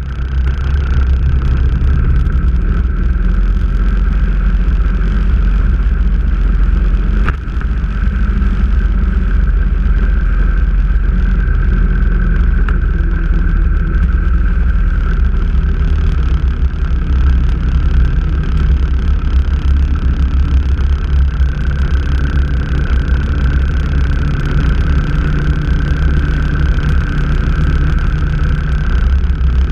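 Motorcycle engine running at cruising speed on the move, with wind rushing over the microphone and a steady high whistle on top. The sound dips briefly with a click about seven seconds in.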